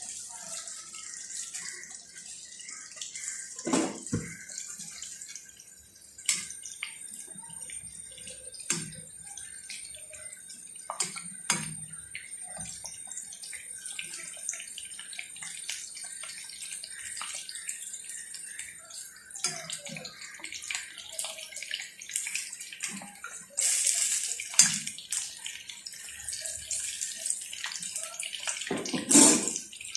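Chicken lollipops deep-frying in hot oil: a steady high sizzle with scattered crackles and pops, and a few louder bursts of spattering.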